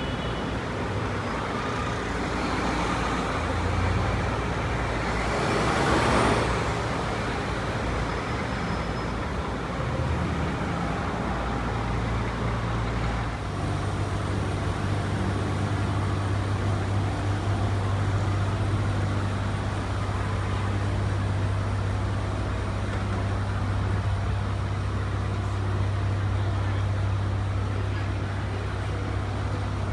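Avenue traffic: a vehicle passes close about six seconds in, then an engine idles nearby as a steady low hum for the rest of the stretch.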